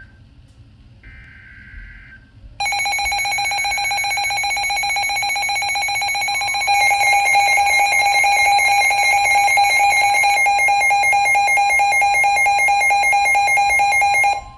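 Midland NOAA weather alert radios going off for a tornado warning. First comes a short burst of warbling data tones (the broadcast's SAME alert header). About two and a half seconds in, a loud, steady electronic alarm starts; about seven seconds in it grows louder as more alarm tones join, and it all cuts off suddenly near the end.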